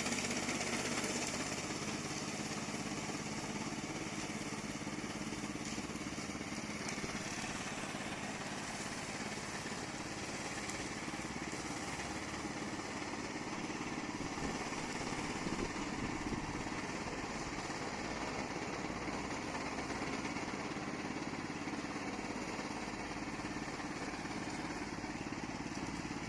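Gasoline engine of a remote-control tracked lawn mower running steadily.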